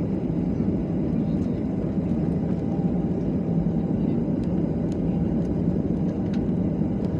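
Steady low rumble of an airliner's jet engines and airflow heard inside the passenger cabin, holding an even level throughout.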